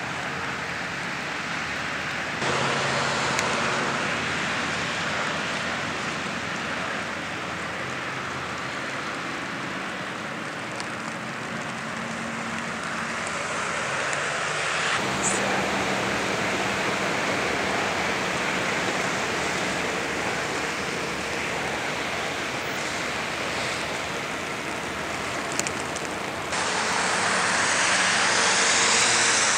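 Steady rain falling, heard as an even hiss that jumps abruptly in level and tone a couple of seconds in, about halfway and near the end.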